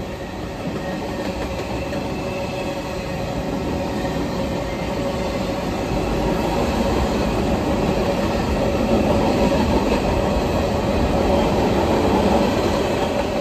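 Freight cars of a passing train, boxcars and empty bulkhead flatcars, rolling by with a steady rumble of wheels on rail and a steady ringing tone over it; it grows louder about halfway through.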